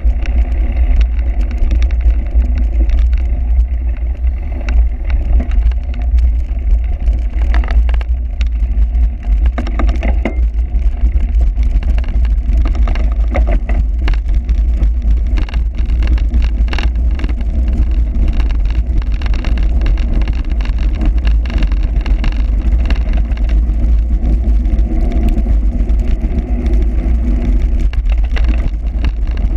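Heavy wind buffeting on a moving camera's microphone, a steady low rumble, with frequent small knocks and rattles, as from a camera riding on a bicycle over a cyclocross course.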